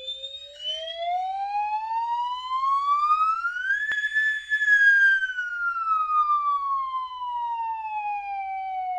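A sound effect added in editing: a single long siren-like wail that slides smoothly up in pitch for about four seconds and then slowly back down, with nothing else under it.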